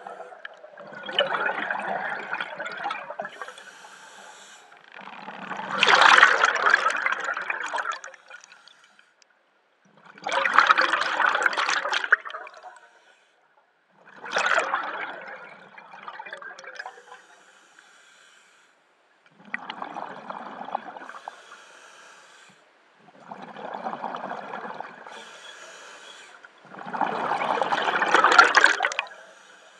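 Scuba diver breathing through a regulator, recorded close by a head-mounted camera: a steady cycle of hissing inhalations and bubbling exhalations, one breath sound every two to four seconds with short quiet gaps between.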